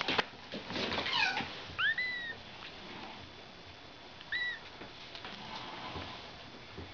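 A young Ragdoll kitten mewing: a few high, thin mews, the one about two seconds in the longest, with light rustling and clicks from a hand handling it near the start.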